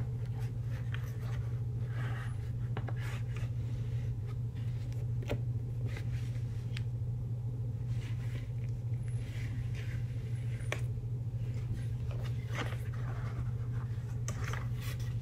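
Cardboard poster mailer being opened by hand: scattered scrapes, scratches and small clicks of cardboard and paper, over a steady low hum.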